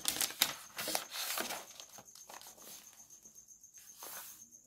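Paper rustling and crinkling for about the first two seconds, as sheets are handled, then only faint ticks under a thin, steady high whine.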